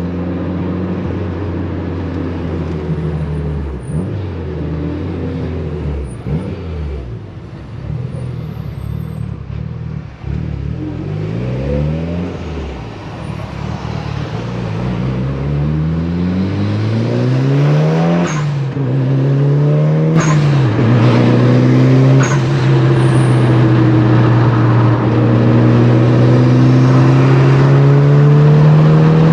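Mitsubishi Lancer Evolution VIII's turbocharged 2.0-litre four-cylinder engine while driving: low, steady running at first, then rising in pitch under acceleration, with three short sharp noises where the pitch breaks and drops in the second half, then a steady note climbing slowly near the end.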